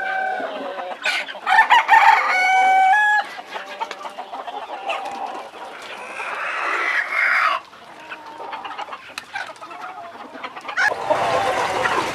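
A flock of local Sonali chickens clucking, with a rooster crowing about two seconds in. A low rushing noise comes in near the end.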